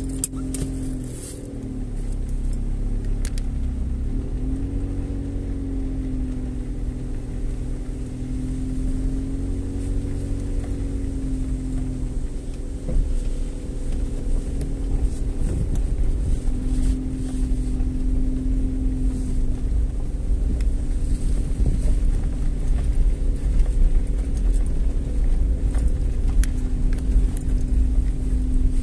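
Car engine and tyre rumble heard from inside the cabin while driving slowly over a dirt road: a steady hum that rises and falls a little in pitch with speed, with a few sharp clicks.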